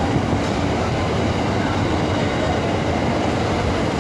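Amtrak passenger train's stainless-steel cars rolling past on the track: a steady rumble of wheels on rails that does not let up.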